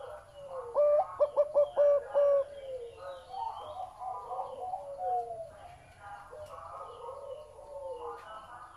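Zebra dove cooing: a loud run of short, clipped notes about a second in, followed by softer rolling coos. Faint higher bird chirps sound in the background.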